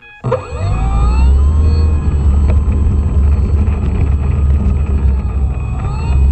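An E-flite Apprentice RC trainer's brushless electric motor and propeller throttle up suddenly about a quarter second in, as heard from a camera on the plane's nose. A whine sweeps up in pitch, then wavers, over a heavy low rumble while the plane rolls for takeoff.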